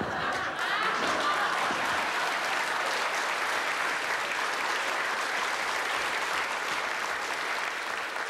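Studio audience applauding, with laughter in the first second or two.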